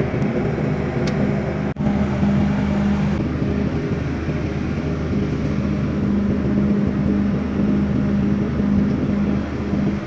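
Diesel generator engine running steadily at constant speed, a steady drone with a strong low tone, briefly cut off for an instant near the two-second mark.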